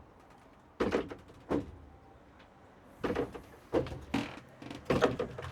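A series of irregular thuds and knocks, about six, spaced unevenly over a few seconds.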